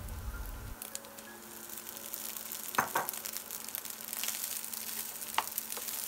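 Hot oil sizzling low and steady in a frying pan as cooked rice goes in on top of fried garlic and dried salted fish, with a few short sharp knocks, the loudest about three seconds in, as the rice is knocked from the bowl and a spatula starts stirring it.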